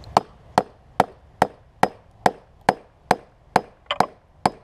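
Steel bar being struck repeatedly while wedged into a lead-acid car battery's plastic case, to break a cell free. About a dozen sharp, evenly spaced blows, a little over two a second, each with a brief ring; one blow comes doubled near the end.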